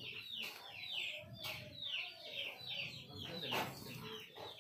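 Rapid, high-pitched peeping from birds, about three falling peeps a second, with splashes and wing flaps as pigeons bathe in a shallow muddy puddle; the loudest splash comes about three and a half seconds in.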